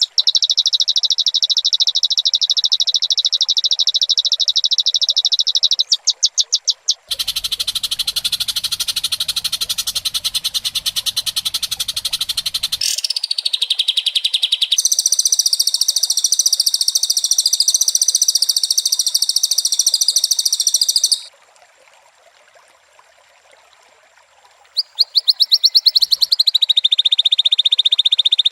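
Recorded high-pitched animal trills, very fast and buzzy, in several long stretches that start and stop abruptly, with a few seconds of near quiet about three quarters of the way through.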